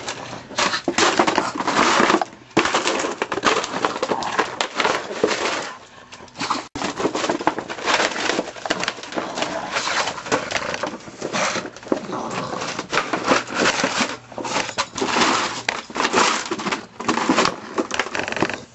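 Plastic jug crunching, crackling and scraping as a dog bites it and shoves it across brick paving, in rapid irregular crackles with a short lull about six seconds in.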